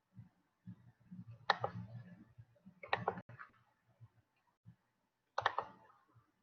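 Three sharp clicks or taps close to the microphone, about a second and a half in, at about three seconds and near the end, among faint low thumps.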